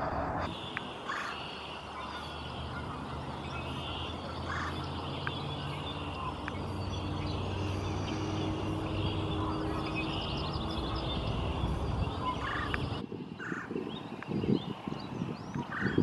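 Several wild birds singing and calling in short chirps and phrases over a steady low hum. In the last few seconds irregular low thumps and rumbles take over as the loudest sound.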